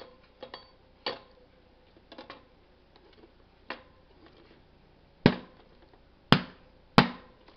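Headset crown race being tapped down onto a bicycle fork crown with a makeshift setting tool: several light taps, then three hard strikes in the last few seconds.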